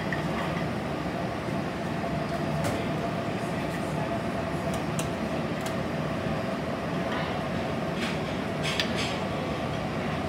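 Steady hum of a commercial kitchen's ventilation, an even rushing noise with a faint steady whine, with a few light clicks of utensils scattered through it.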